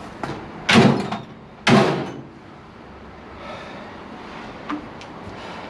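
Two short, loud rushing noises about a second apart as a heavy, battery-loaded tool cart is lifted and shifted, followed by a faint click near the end.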